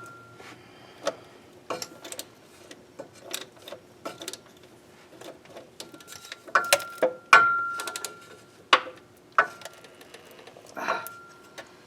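Socket ratchet tightening a starter mounting bolt: irregular ratchet clicks and clinks of steel tools on metal, some with a brief metallic ring, busiest about two-thirds of the way through.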